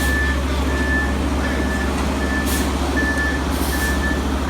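A heavy truck's reversing alarm beeping steadily, about six beeps, over the low steady running of a diesel engine.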